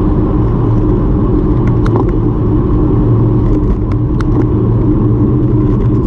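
Steady low rumble of a moving vehicle, with a few light clicks.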